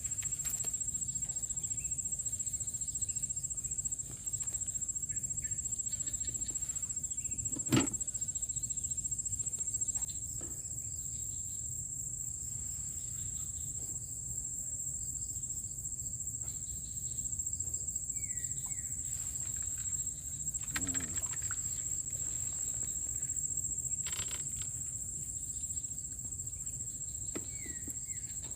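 Steady high-pitched insect chorus, with a low rumble of background noise beneath it. A sharp knock about eight seconds in, a softer one about 21 seconds in, and two faint short chirps later on.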